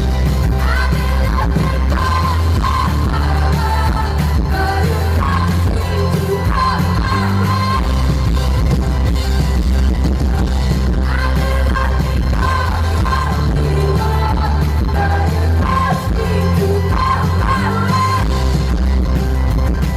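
Live pop concert music: a woman singing over a band with heavy bass and drums, in a loud audience recording with poor sound quality.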